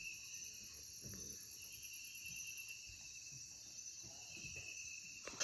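Faint chorus of rainforest insects: steady high trills at a few different pitches, with one rapidly pulsing very high call that fades out about three seconds in.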